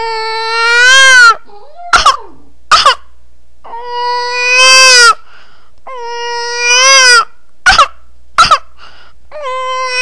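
A person imitating a crying baby: long, high wailing cries broken by pairs of short, sharp gasping breaths.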